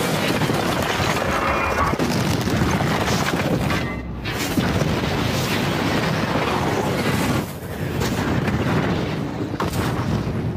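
Film sound of a city being destroyed: dense, continuous booming and rumbling of explosions and fire, with orchestral score underneath. It briefly drops back about four seconds in and again near seven and a half seconds.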